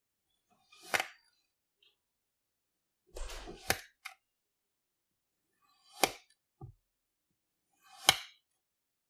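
A knife slicing through a block of kinetic sand: four cuts about two seconds apart, each a short soft crunch ending in a sharp tap as the blade meets the table.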